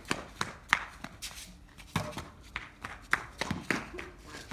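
Slippers slapping on paving tiles as children run, a quick irregular patter of about three or four slaps a second.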